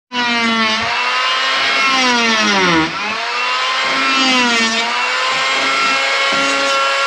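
Small handheld electric planer switching on and cutting into oak frame timber. A steady motor whine whose pitch sags as the blades take a heavier bite, about three seconds in and again at four and a half, then climbs back up.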